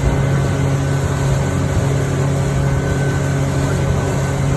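Boat engine running at a steady speed while under way: an even, unchanging low drone over a constant rushing noise.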